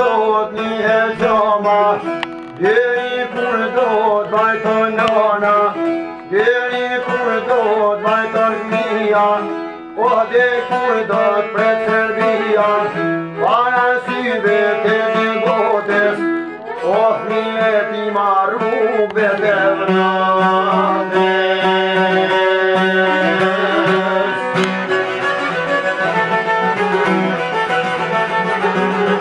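Albanian folk music played live on a long-necked plucked lute and a bowed fiddle. The phrases each open with a sliding rise and repeat every few seconds, and about two-thirds of the way through the playing turns into a steadier, busier instrumental passage.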